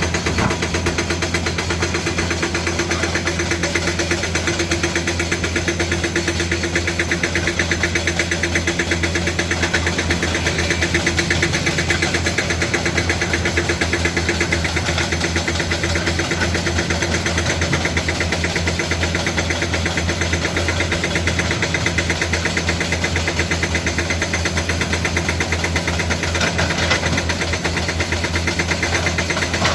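Komatsu PC200 excavator's diesel engine running steadily with a fast, even pulse.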